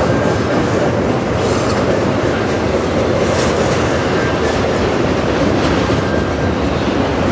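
Double-stack container well cars of a freight train rolling past: a loud, steady rumble of steel wheels on the rails, with a faint thin squeal coming and going a few times.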